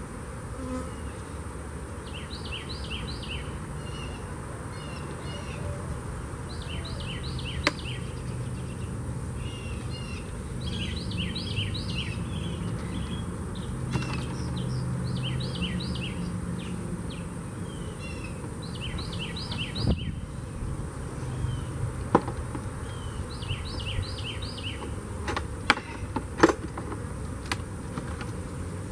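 Honeybees buzzing around open hives as a steady low hum that swells for several seconds mid-way. A bird sings short runs of quick high notes every couple of seconds, and a few sharp clicks sound, the loudest near the end.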